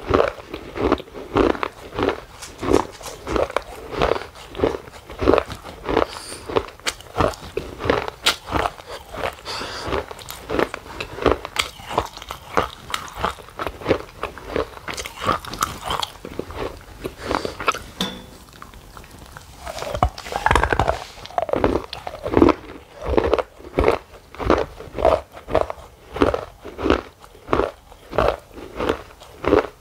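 Close-miked chewing of crisp golgappe (pani puri), steady crunching chews about twice a second. The chewing pauses briefly just past the middle, then crunches again with a fresh bite.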